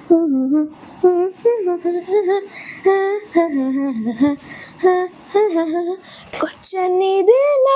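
A high-pitched voice singing a tune without accompaniment, in short phrases with held notes, one of them gliding upward near the end.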